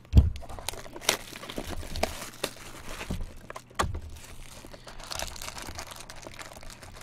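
Clear plastic wrapping and a baseball card pack being handled and torn open, crinkling throughout with scattered sharp cracks. A dull thump comes right at the start, the loudest sound here.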